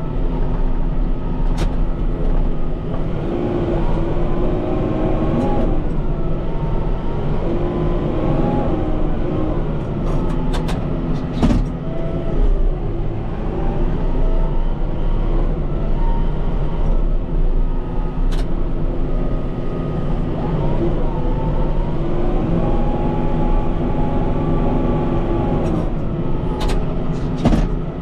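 Kubota M5-091 tractor's four-cylinder turbodiesel running under load while pushing deep snow, its engine pitch rising and falling repeatedly, with a few sharp knocks now and then.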